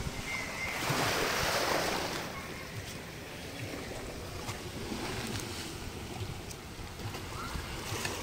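Small sea waves washing and lapping against a rocky seawall, with one louder wash about a second in.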